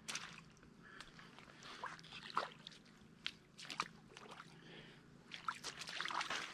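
Shallow water splashing and sloshing in short, irregular bursts as a person crouches and pushes a sluggish catfish through the shallows.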